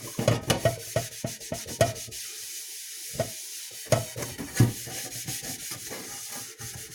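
A soot-blackened metal saucepan being scrubbed by hand with cleaning paste, in irregular rubbing strokes that come fast at first and then more sparsely.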